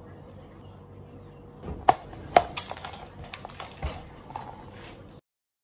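Clear plastic dome lids pressed onto two plastic drink cups: two sharp clicks about two seconds in, then lighter clicks and handling of the plastic. The sound cuts off suddenly near the end.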